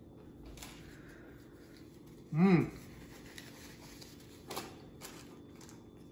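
A man eating a potato pancake gives a short hummed "mmm" of approval, its pitch rising then falling, about two seconds in. Otherwise there is quiet room tone, with a soft tap later on.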